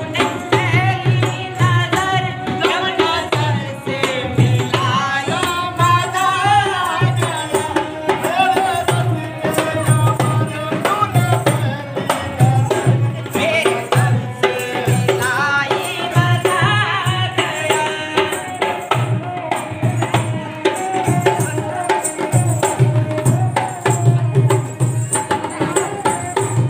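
Rajasthani folk song: a boy singing a winding melody over a steady dholak beat, with a ravanhatha, a bowed bamboo fiddle, playing along.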